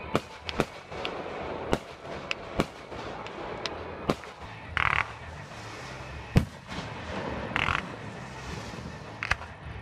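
Aerial fireworks shells bursting in a string of sharp bangs of varied loudness, the loudest about six seconds in, with two short hisses in between.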